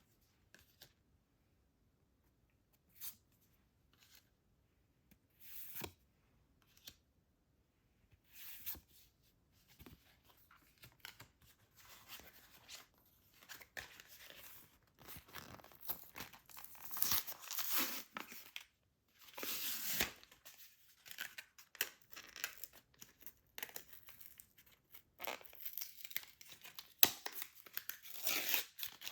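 Trading card blister pack packaging being torn open and crinkled by hand. A few short rustles and taps come first, then steady tearing and crinkling of the packaging starts about eight seconds in and grows louder toward the end.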